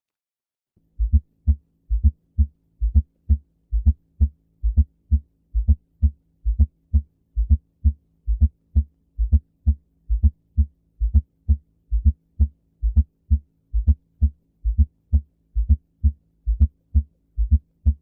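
Recorded heart sounds with a fourth heart sound (S4): a long, regular run of short low thuds, starting about a second in. The S4 falls just before the first heart sound and gives a gallop rhythm, the sign of a stiff, hard-working ventricle.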